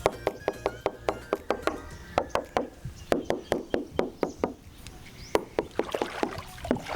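Rapid run of sharp, hollow knocks on a thin plywood boat hull, about four or five a second with a couple of short pauses.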